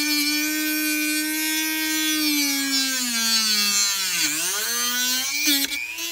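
Handheld rotary tool whining steadily as its bit grinds into the end of a small wooden strip. The pitch sags from about two and a half seconds in, is lowest a little after four seconds as the bit is pressed into the wood, then climbs back, with a few sharp clicks near the end as the tool is lifted away.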